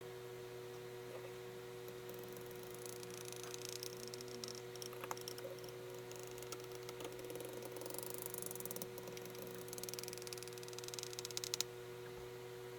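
Kinetic sand being scratched and scraped, sped up to four times normal speed, in patches of fine, crackly scratching that stop suddenly near the end. A steady electrical hum runs underneath.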